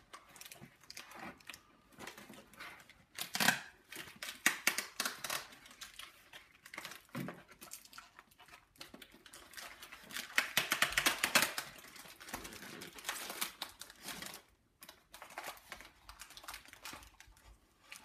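Cardboard and thin plastic toy packaging crinkling and rustling as it is handled and pulled at, with scattered clicks and taps; busiest a few seconds in and again around ten seconds in.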